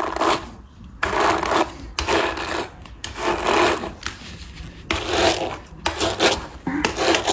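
Plastic-bristled paddle brush dragged through a doll's wet synthetic hair in repeated strokes, about one a second.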